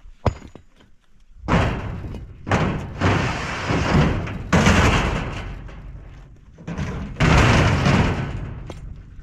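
Rough stones dropped and shoved onto the steel bed of a pickup truck: a series of heavy crashes, each followed by scraping and rattling, the loudest about seven seconds in.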